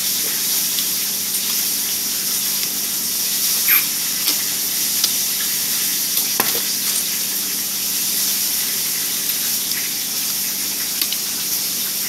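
Steady sizzling hiss of food frying in the background, with scattered small pops and clicks and a faint low hum underneath.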